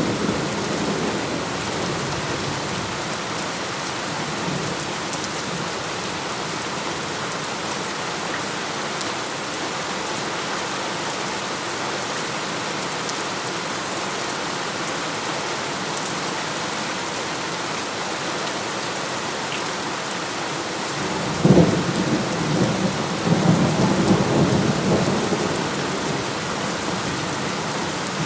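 Heavy, steady rainfall with thunder. A rumble dies away at the start. About 21 seconds in, a sudden thunderclap is followed by a rolling rumble lasting a few seconds.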